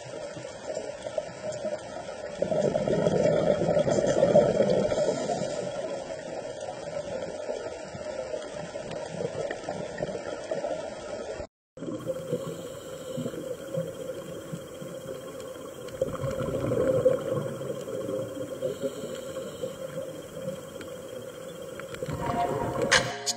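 Underwater ambient noise picked up by a camera below the surface: a steady wash of water sound that swells louder now and then, broken by a brief dropout about halfway through.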